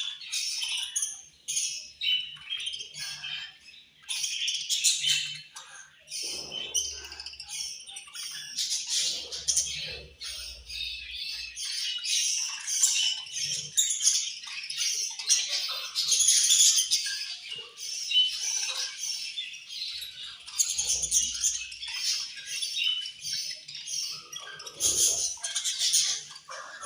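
A flock of budgerigars chattering and chirping continuously, with harsher squawks mixed in. Wing flaps and light knocks are heard here and there.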